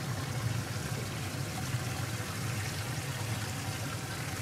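Boat live-well aerator running: water pouring and trickling steadily into the well over a constant low hum.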